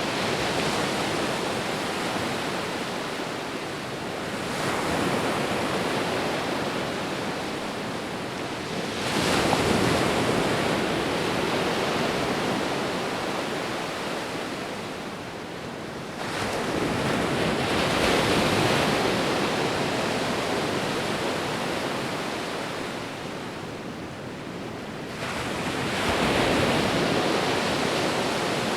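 Sea waves breaking as steady surf. The surf swells up and dies away again four times, a new wave about every five to nine seconds.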